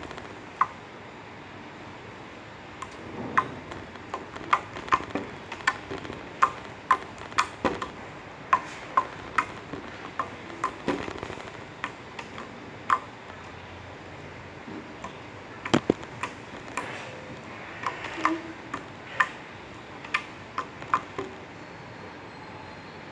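Glitter slime being squished and stretched, giving irregular sharp clicks and pops as air pockets burst, some with a short ringing tone. They come in two spells of about two pops a second, with a quieter pause between them.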